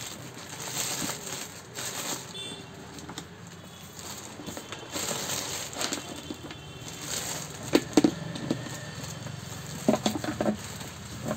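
Clear plastic packing bag crinkling and rustling as a mixer grinder's motor base is pulled out of it. A few sharp knocks about eight and ten seconds in as the plastic base is handled and set down on the counter.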